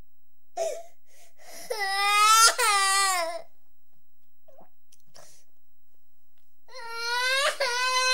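A toddler about two and a quarter years old crying in drawn-out wails. A short cry just under a second in, then a long wail that catches once midway, and after a few seconds' pause another long wail near the end.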